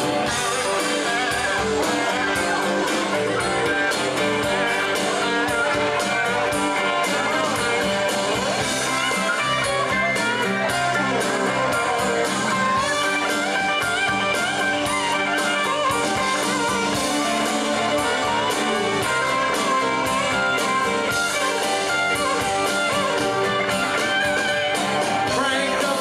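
Karaoke backing track playing steadily over the bar's sound system, a guitar-led song.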